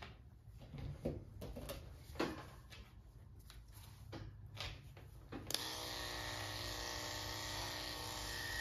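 Electric pet clipper with a number 10 blade switched on with a click a little past halfway, then running steadily with an even hum and whine. Before that, a few soft knocks and rustles from handling.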